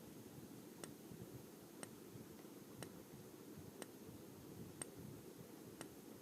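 Near silence broken by faint, regular ticks, about one a second.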